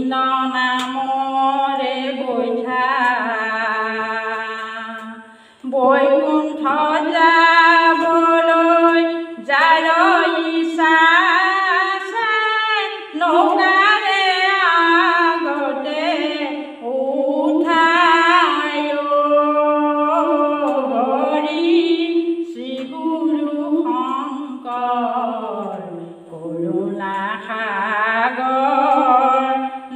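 A woman singing an Assamese folk song unaccompanied, close into a handheld microphone, in long drawn-out phrases with a short pause about five seconds in.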